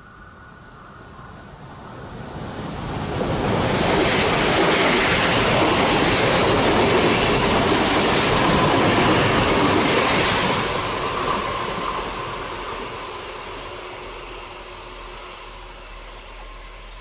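Two coupled double-deck TER electric multiple units (Z 23503/04 and Z 26443/44) passing on the line. The wheel and rail noise builds from about two seconds in, is loudest from about four to ten seconds in, then fades as the train moves away.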